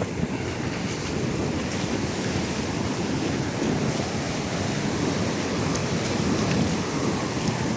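Pacific Ocean surf washing steadily onto the beach, with wind buffeting the microphone.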